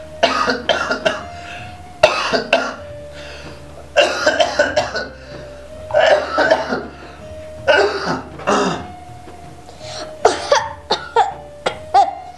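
A man coughing into his fist in short fits about every two seconds, over quiet background music with a held note.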